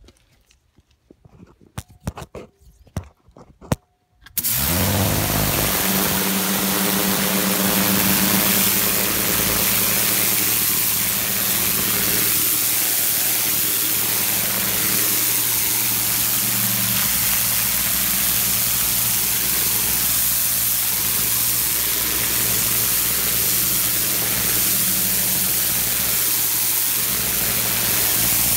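A few faint clicks, then about four seconds in a Sun Joe SPX3000 electric pressure washer starts suddenly and runs steadily. Its motor and pump make a steady hum under the loud hiss of the jet from a rotary multi-angle nozzle spraying dirt off stone steps.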